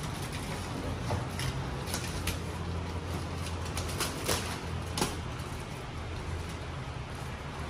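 Small cardboard boxes and their packaging being handled and opened: scattered taps, flap rustles and crinkles over a steady low hum.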